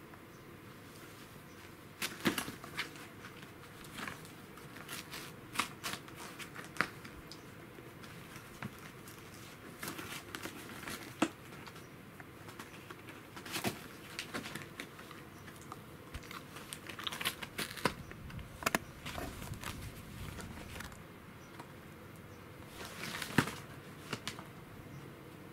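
A kitten pawing and biting at a torn paperboard tissue box: irregular crinkling, scraping and papery rustles, with a few sharper crackles scattered throughout.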